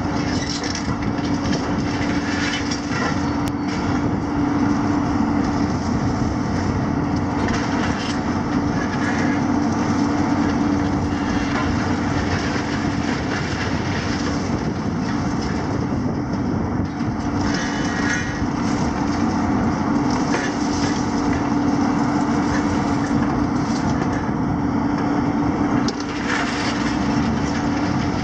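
Diesel engines and hydraulics of two demolition excavators, a Hitachi 250 and a JCB, running steadily with a constant low hum. Their attachments crunch and crack broken concrete and debris, with louder bouts of crackling several times.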